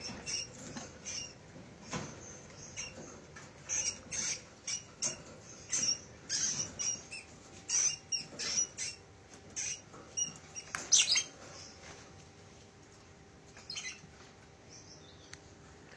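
Rapid, irregular, short high-pitched squeaks and chirps from a budgie and a mouse fighting in a wire cage. The squeaking is dense for about the first eleven seconds, then dies down to a few squeaks near the end.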